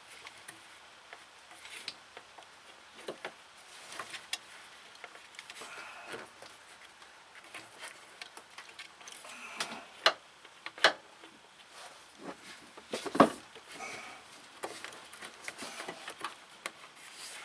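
Scattered clicks and knocks of hand tools and parts being handled, irregular, with the sharpest knocks about ten and thirteen seconds in.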